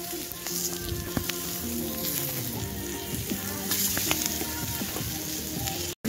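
Burgers and sliced peppers sizzling in a frying pan over a campfire: a steady frying hiss with scattered small pops and crackles, with music playing underneath.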